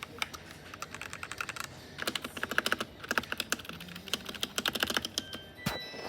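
Typing on a modded mechanical keyboard: keystrokes come in fast runs with short pauses, and there is one sharper knock near the end.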